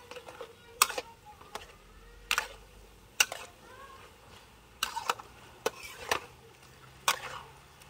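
Metal spatula stirring food in a steel wok, scraping and clanking against the pan in about nine sharp, irregular knocks.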